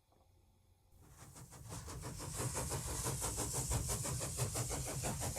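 A machine running with a fast, even rhythm and a high hiss, fading in about a second in and then holding steady.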